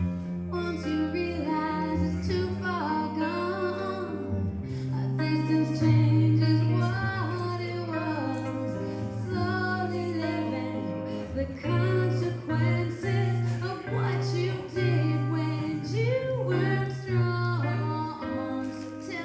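A woman singing a soul-jazz song live, accompanied by a single guitar, with sustained low bass notes from the guitar under the voice.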